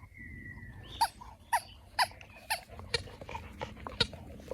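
Squeaky rubber ball being chewed by a young boxer dog: one drawn-out squeak, then a run of short, sharp squeaks about two a second.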